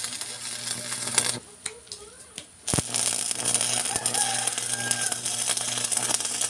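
Electric arc welding: two runs of dense crackling hiss over a steady electrical hum, the first ending about a second in, the second starting with a sharp strike about three seconds in and running on, each cutting off abruptly.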